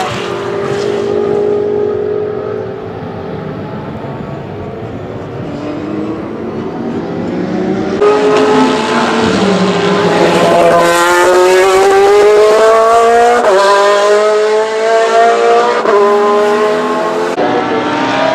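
GT race car engines at full throttle. A Porsche 911 GT3 R's flat-six fades as the car pulls away. After a sudden cut, another race car's engine grows loud as it accelerates, its pitch climbing and then dropping back at each of several upshifts.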